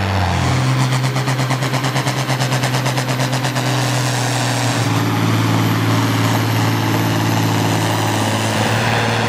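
Farm tractor diesel engines at full throttle, pulling a weight-transfer sled. From about one to four seconds in the engine sound pulses rapidly, about seven times a second. It then runs steady with a thin high whistle over it.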